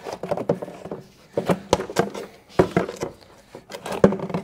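Plastic air cleaner box and ribbed rubber intake duct being pulled up and moved by hand: a string of irregular knocks, clicks and scrapes of hard plastic.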